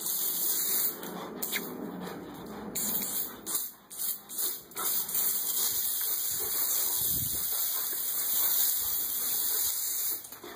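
Water hissing out of a garden hose spray nozzle in a fine spray, cut off briefly a few times and stopping near the end.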